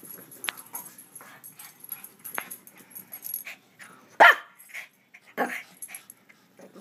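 Excited Shih Tzus yipping and whining, with a sharp bark about four seconds in and another a second later, among scattered small clicks and scuffles.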